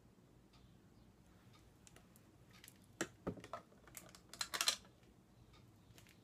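Sharp clicks and rattles of small plastic makeup items being handled and picked through: a short flurry about three seconds in and a louder one about a second later, with faint ticks around them.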